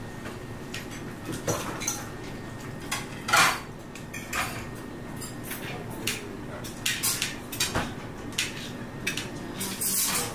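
Irregular clinks and clatters of metal dishes and utensils, the loudest about three and a half seconds in, over a steady low background hum.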